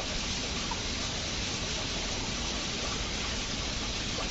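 Steady rush of stream water flowing over rock into a pool, an even hiss with no breaks.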